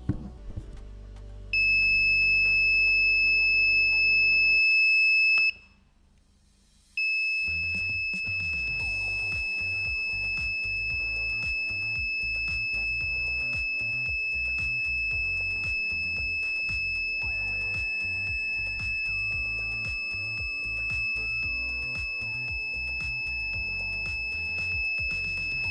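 Electronic alarm sounding one steady, high-pitched tone, broken by a short silence at about five and a half seconds, with background music under it. It goes off as the freshly reassembled 3D printer hotend's temperature runs away, and the owner fears something is burning.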